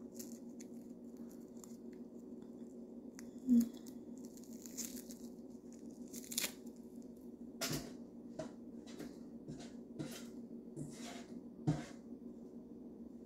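An onion being handled and peeled by hand: scattered light rustling and tearing of its papery skin, with a few soft knocks, over a steady low hum.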